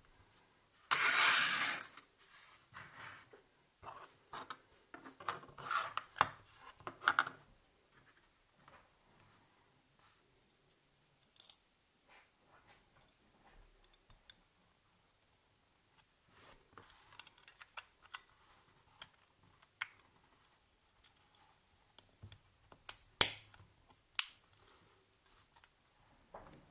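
Close-up hand-work on small objects: a short rasping sound about a second in, then a few seconds of light clicks and rustles, then scattered faint ticks and two sharp clicks near the end.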